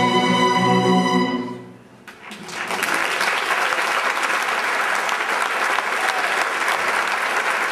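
A string orchestra holds its final chord, which fades away about two seconds in. The audience then breaks into steady applause.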